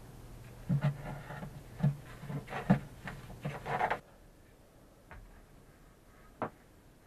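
Hands and a paintbrush working inside a fibreglass boat locker: irregular knocks and scraping for about three seconds over a low steady hum. Both stop abruptly about four seconds in, and then come only a few single soft taps of the brush.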